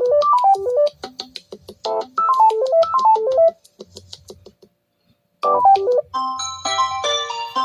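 Samsung Galaxy Tab A8 stock ringtone playing: a short keyboard melody that rises and falls, repeated, with a pause of nearly two seconds. About six seconds in, a different ringtone with busier, higher chiming notes begins.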